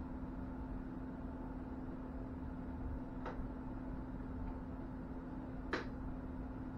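Two short clicks from a smartphone being fitted into a VR headset, a faint one about three seconds in and a louder one near six seconds, over a steady low hum.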